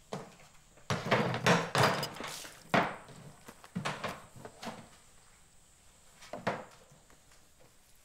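Things being handled on a wooden desk while it is searched: a quick run of knocks, scrapes and rustles in the first three seconds, then a few single wooden knocks.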